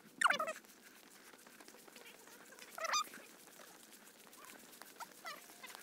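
Birds calling outdoors: a few short, falling chirps, one about three seconds in the loudest, over a faint steady background hiss with light ticking.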